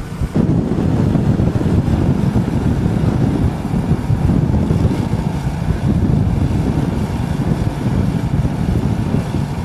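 Wind buffeting the microphone: a loud, ragged low rumble.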